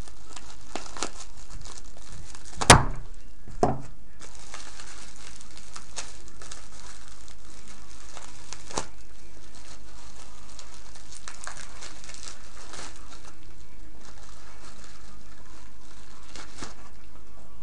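Bubble wrap and a plastic bag crinkling and rustling as they are handled and pulled off a part, with a sharp snap about three seconds in and a smaller one a second later.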